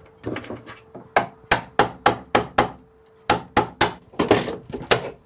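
Hammer striking in two quick runs of about six blows each, roughly four a second, with a short pause between the runs.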